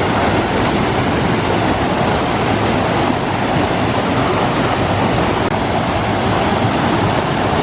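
Waterfall: falling water rushing in a steady, even wash of noise close by.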